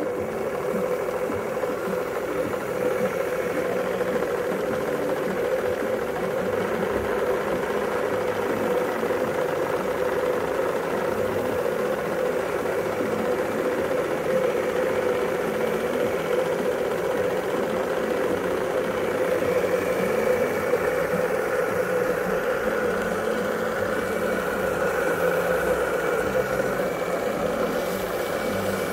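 Small model steam engine running steadily on test.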